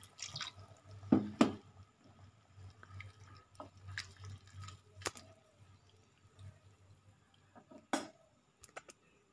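Water poured into a simmering non-stick wok of stir-fry, then a spatula stirring and knocking against the pan. The sharpest knocks come a little over a second in, with scattered clicks later.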